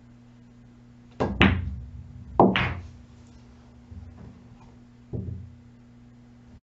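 A pool shot. The cue tip strikes the cue ball, which clicks sharply into the object ball about a second in. About a second later comes the loudest sound, a heavy thunk as the object ball drops into the pocket, and then two softer knocks as the cue ball comes off the cushions on its two-rail path.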